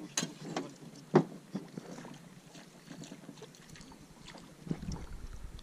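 A few sharp knocks and rattles on a small metal fishing boat, the loudest about a second in.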